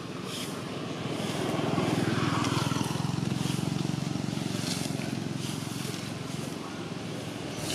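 A motor engine running steadily, growing louder over the first couple of seconds and then easing off.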